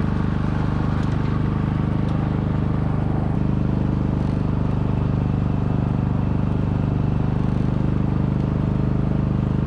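Small engine running at a constant speed: a steady low drone that does not change in pitch.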